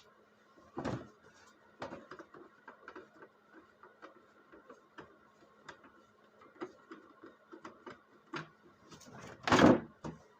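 Irregular small clicks, taps and knocks of hand work with tools and parts, with a louder knock about a second in and a heavier thump near the end, over a steady low hum.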